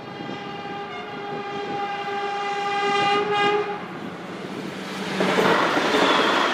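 CRRC Sifang diesel-electric multiple unit sounding its horn in one long, steady blast of about three and a half seconds, then rushing past close by about five seconds in.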